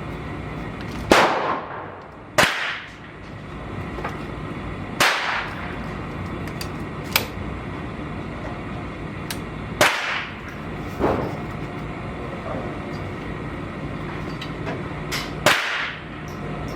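Gunshots at a shooting range: about five sharp, loud reports with a trailing echo at uneven intervals, the first two little more than a second apart, plus a few fainter cracks, over a steady low hum.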